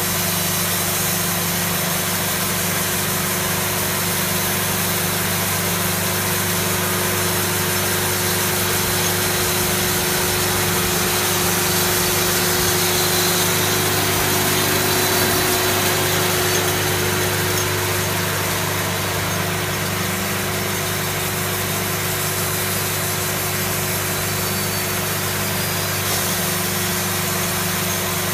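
Wood-Mizer LT70 portable band sawmill running: its engine runs steadily under the hiss of the band blade cutting as the saw head travels along the log. The sound swells slightly around the middle.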